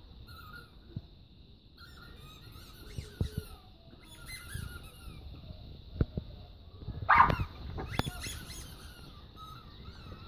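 A Staffordshire bull terrier puppy chews a squeaky dog toy, giving short squeaks now and then. The loudest squeak comes about seven seconds in, and a few sharp knocks fall among them.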